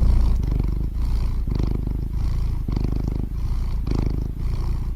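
A cat purring close up, a steady low purr that swells and eases with each breath, about every half second or so.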